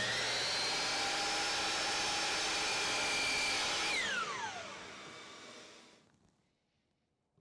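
Ridgid sliding compound miter saw running at full speed as its blade is brought down through a wooden strip, a steady high whine over cutting noise. About four seconds in the trigger is released and the motor spins down, its whine falling in pitch and fading away.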